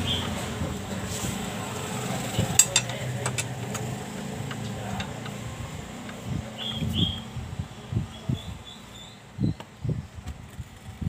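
Hand wrench working bolts on a Yamaha Mio scooter's underside during disassembly: scattered metallic clicks and clinks, a small cluster about two and a half seconds in, then soft knocks through the second half.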